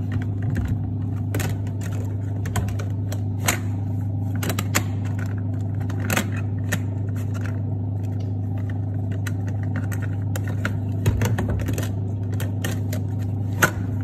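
Hisense twin-tub washing machine running with a steady low motor hum, with scattered light clicks and knocks as the plastic inner cover of the spin basket is handled and pressed into place.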